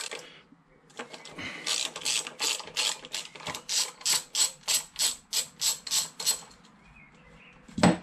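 Ratchet wrench on an extension spinning out a brake caliper bolt: an even run of ratchet clicks, about three strokes a second, for several seconds. The clicks stop and a single louder knock follows near the end.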